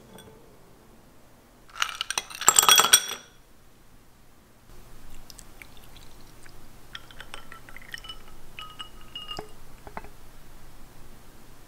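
A loud burst of clinking and ringing against a glass about two seconds in. Then a milky drink is poured over ice cubes in a glass tumbler: a steady pouring hiss with small clinks of the ice against the glass.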